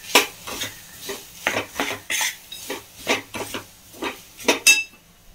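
Steel spoon scraping and clinking against a stainless steel kadhai as lumps of jaggery are stirred and broken up to melt, about two strokes a second. A sharper clink rings briefly near the end.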